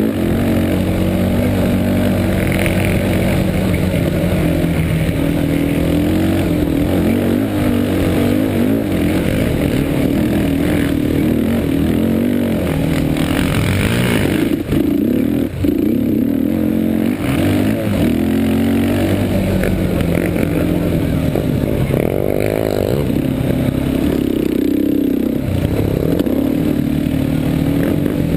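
Yamaha Warrior 350 ATV's single-cylinder four-stroke engine running hard and heard from on board, its pitch rising and falling as the throttle is opened and closed over the dirt course, with a couple of brief drops about halfway through.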